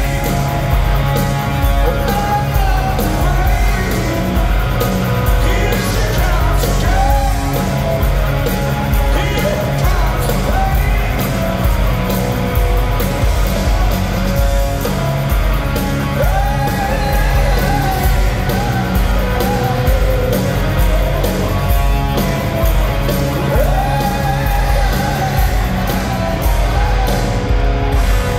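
Live rock band playing loud, with electric guitars and drums under a male lead vocal, heard from the audience in a large hall.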